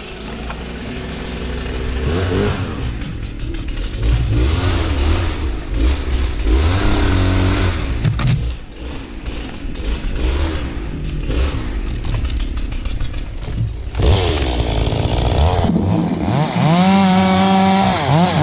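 Chainsaw running, its engine revving up and down again and again, with sharp rises to full speed about fourteen and sixteen seconds in.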